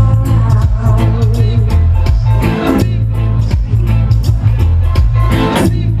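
Electronic dance music from a DJ set played loud over a festival sound system with heavy, steady bass, recorded from inside the crowd.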